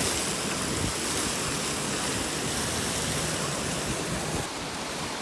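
Steady rush of falling and splashing water, from a garden fountain jet and a rocky cascade. The hiss eases slightly near the end.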